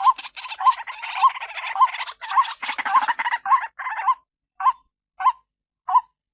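White-breasted waterhen (ruak-ruak) calling: a short hooked note repeated about every half second, over a dense harsh chattering for the first four seconds or so, then thinning to the spaced single notes. This is the female's call used as a lure call.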